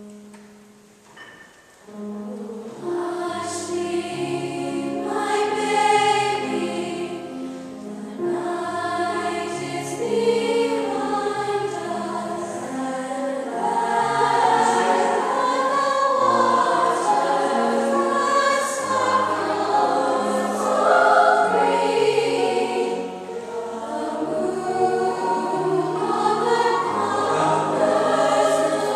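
Girls' choir singing with piano accompaniment, beginning about two seconds in and then running on in sustained, full chords.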